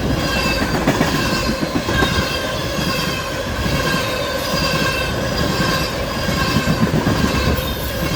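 Freight train cars rolling past close by: a steady rumble of wheels on rail with a high-pitched squeal from the wheels that wavers slightly in pitch.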